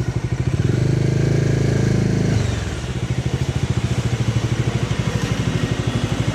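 Motorcycle engine running, revved up about a second in and dropping back to a steady idle about two and a half seconds in, on a bike that is giving off heavy smoke from a fault.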